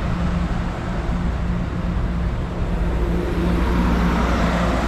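Amtrak Pacific Surfliner bilevel passenger cars rolling past close by as the train pulls out: a steady rumble of steel wheels on the rails, with a steady low hum.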